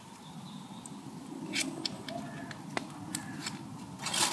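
A butter wrapper rustling and a knife cutting pieces off a block of butter over kitchen foil: soft rustling with a few small clicks, and a louder crinkle near the end.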